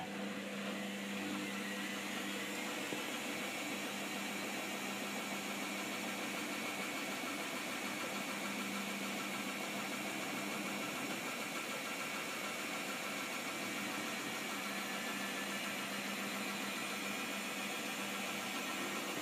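Hoover Optima washing machine on its final spin: the motor and drum run at speed with a steady hum and an even rushing noise.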